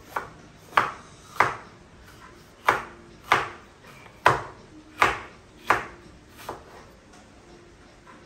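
Kitchen knife chopping vegetables on a cutting board: about nine separate sharp strokes, roughly one every half second to second, the last one softer, stopping about six and a half seconds in.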